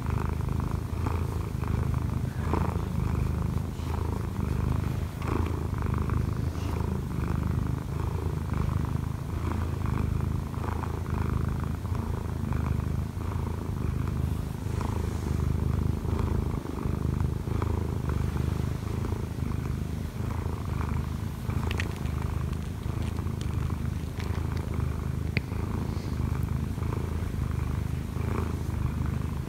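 Munchkin cat purring steadily, a continuous low rumble without a break, content as its head is stroked.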